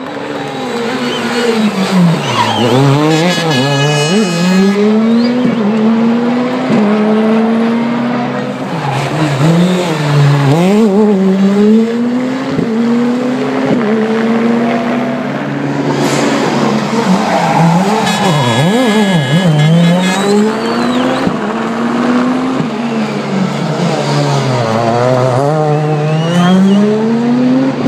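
Peugeot 207 S2000 rally car's naturally aspirated two-litre four-cylinder engine revving hard on a mountain stage: the pitch climbs and drops again and again through gear changes as the car approaches. Near the end it falls low as the car slows for a hairpin, then climbs again as it accelerates out.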